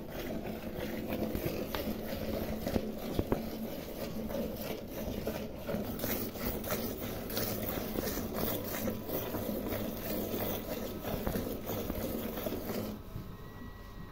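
Cow being milked by hand: rapid, rhythmic squirts of milk hitting the foamy milk in a steel pail, stopping about a second before the end.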